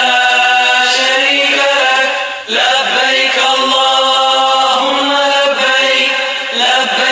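Melodic chanting with long, drawn-out held notes, pausing for breath about two and a half seconds in and again near the end.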